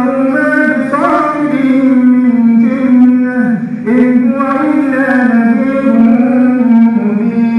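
A male imam's melodic Quran recitation during congregational prayer: one voice chanting in long, drawn-out notes that waver and step slowly in pitch, with a brief dip about three and a half seconds in.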